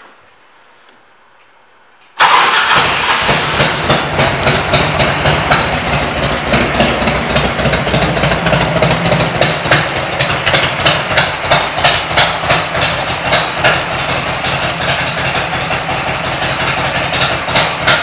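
1998 Harley-Davidson Electra Glide Classic's V-twin, fitted with aftermarket exhaust pipes, starts suddenly about two seconds in and then idles loudly with a rapid, uneven pulsing beat.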